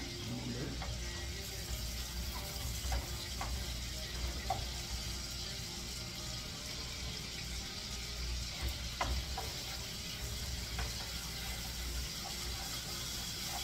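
Butter and garlic sizzling in a frying pan as a steady hiss, with a spatula clicking against the pan a few times as it is stirred, over a steady low hum.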